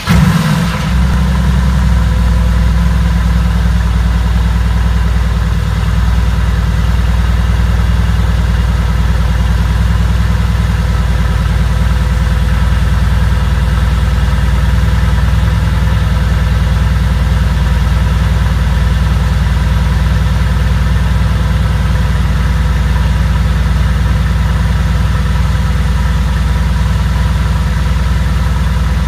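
2016 Mercedes-AMG GT S's twin-turbo V8 just after start-up. It flares briefly in the first second, then settles into a steady, unchanging idle through the exhaust.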